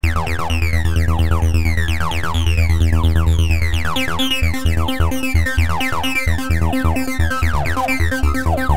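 Electronic background music with repeated falling synthesizer sweeps over a steady bass, starting abruptly and becoming choppier and more rhythmic about four seconds in.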